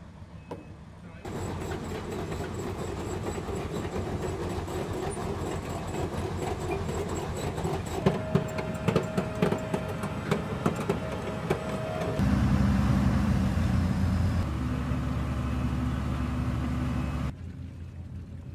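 M1A1 Abrams tanks with their gas-turbine engines running as they move, with a faint high whine early on. A run of sharp metallic clanks comes in the middle. The engine sound changes abruptly several times.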